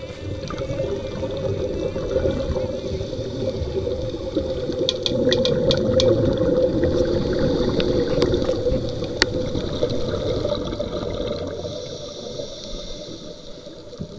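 Scuba regulator exhaust bubbles rushing and gurgling underwater, heard muffled through a waterproof camera case, with a few sharp clicks about five to six seconds in and one more about nine seconds in.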